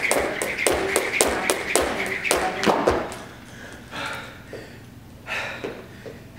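Jump rope double unders: the rope slaps the floor and the feet land in a rapid, even rhythm of about four taps a second, stopping about three seconds in. Then come a couple of hard, short breaths.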